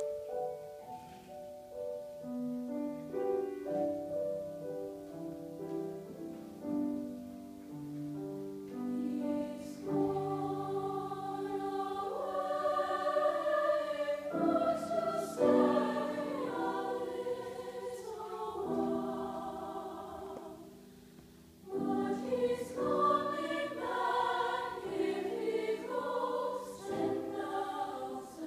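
School choir singing a slow piece in sustained harmony, starting sparse and swelling fuller and louder about ten seconds in. It fades almost to nothing about twenty seconds in, then comes back in strongly.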